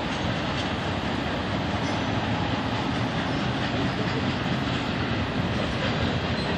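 Union Pacific freight train's stacked intermodal container cars rolling across a bridge, a steady rumble of wheels on rail, mixed with highway traffic passing in front.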